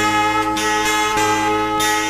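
Solo acoustic guitar playing Batanghari Sembilan music, with plucked notes roughly every half second ringing over held tones.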